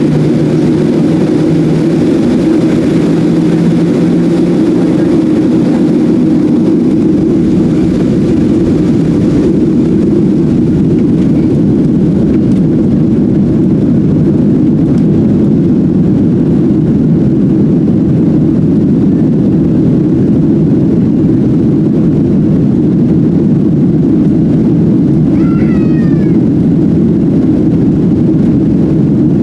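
Boeing 737-700 cabin noise heard from a window seat: the steady, loud rumble of the CFM56-7 jet engines and airflow, with its higher hiss easing off about a third of the way in. Near the end comes a brief faint high call that bends downward.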